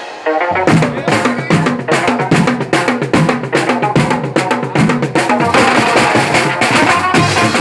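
Banjo party band playing: a fast, driving drum beat under a melody line. The sound drops back briefly at the very start, and the full band comes back in within the first second.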